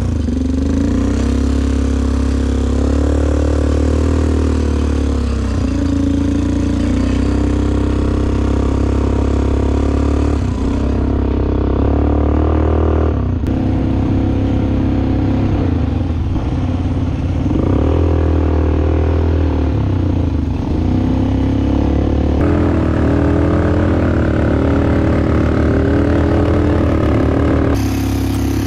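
ATV engine running under throttle, its pitch rising and falling over and over as the rider speeds up and eases off on a dirt track.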